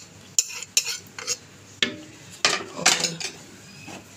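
A pan and spoon knocking and scraping as cooked raw-mango pulp is emptied into a blender jar. It is a string of sharp clicks and scrapes, several in the first two seconds, then a longer, louder scrape about two and a half seconds in.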